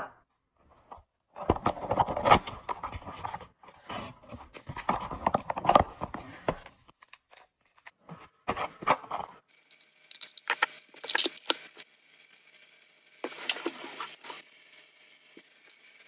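Kitchen food-preparation handling sounds: several bursts of scraping and rustling with sharp clicks of utensils and containers, then from about ten seconds in a steadier hiss with occasional clinks.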